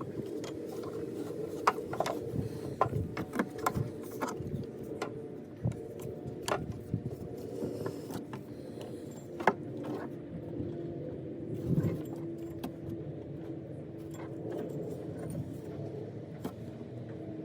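Scattered light metallic clicks and clinks of hands and tools working a new ribbed accessory belt around the engine pulleys, over a steady low hum.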